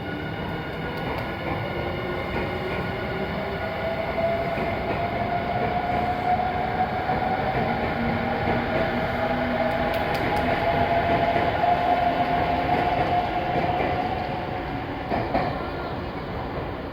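Nankai Rapi:t electric limited express pulling out. Its motors whine, rising slowly in pitch as it gathers speed, over a steady rail rumble that swells to its loudest about twelve seconds in, then eases off.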